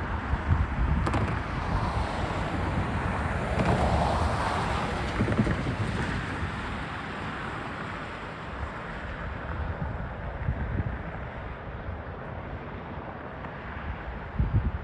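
Union Pacific intermodal stack train's cars rolling past: a steady rumble of wheels on rail with low thuds and clanks, easing off gradually in the second half. Wind buffets the microphone.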